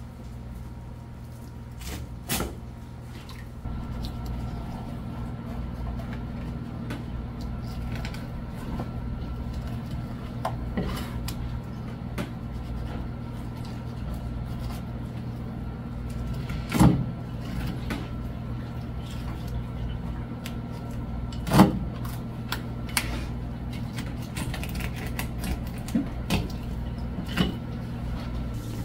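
Steady low hum of kitchen machinery, with occasional sharp knocks of a knife and a large fish against a plastic cutting board as the fish is filleted; two louder knocks come past the middle.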